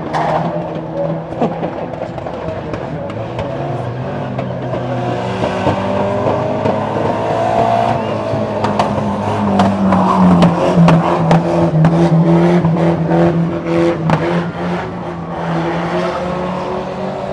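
Banger racing cars' engines running and revving around the track, with a run of sharp knocks in the middle; a car drives past close near the end.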